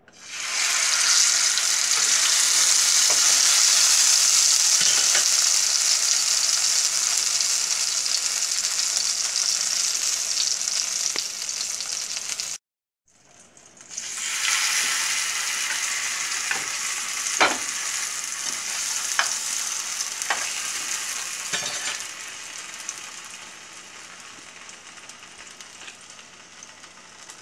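Sauce-dipped potato tacos frying in hot oil in a nonstick pan: a loud sizzle starts suddenly as a taco goes into the oil. The sizzle breaks off briefly about halfway, then returns with a few sharp clicks of the spatula against the pan, and is quieter near the end.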